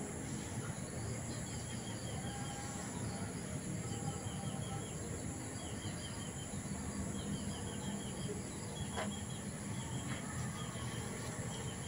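Outdoor garden ambience: insects droning steadily at a high pitch, with a bird repeating short chirping phrases over and over.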